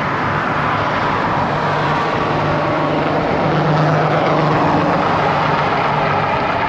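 Steady rush of motor traffic passing on the highway, with a faint engine hum in it, mixed with wind buffeting the microphone from a strong headwind.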